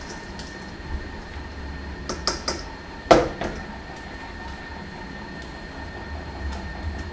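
Kitchenware being handled on a counter: a few light clicks and clinks, then one louder clank about three seconds in.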